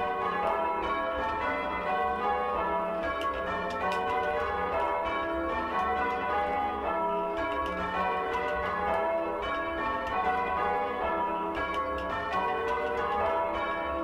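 A ring of six old church bells (16 cwt, tenor in E) rung full-circle in change ringing, the bells striking one after another in a steady continuous rhythm, heard from the ringing chamber below. The tenor is badly oddstruck, its strokes falling unevenly.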